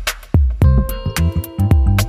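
Background music: an electronic drum beat, joined about half a second in by held synthesizer notes playing a melody.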